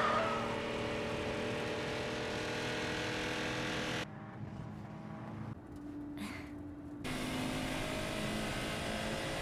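Car engine running at a steady high speed. Its drone cuts off abruptly about four seconds in to a quieter, different engine tone, then comes back about three seconds later.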